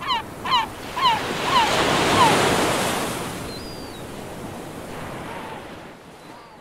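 Surf sound effect: a wave washes in, swelling over the first two seconds, then slowly dies away. Over it a bird calls five times in the first two and a half seconds, each call short and falling in pitch. The sound cuts off suddenly at the end.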